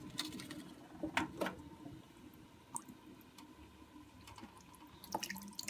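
Water dripping and trickling out of a pulled-off hose on a Carrier Infinity 96 condensing furnace, with a couple of faint clicks about a second in. The trickle picks up near the end. Water standing in that line is the sign of condensate backing up in the furnace.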